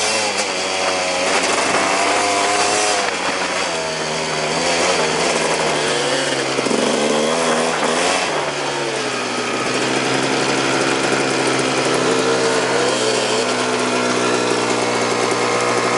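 A 2001 Honda CR250R's single-cylinder two-stroke engine under way on a dirt bike, its revs rising and falling with the throttle. The pitch dips about six seconds in, climbs again, then holds fairly steady through the second half.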